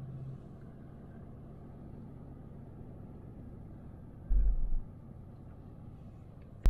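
Toyota LandCruiser 200 rolling slowly, a quiet steady low rumble of engine and tyres heard from inside the cabin. A little after four seconds in, a short louder low rumble lasts about half a second.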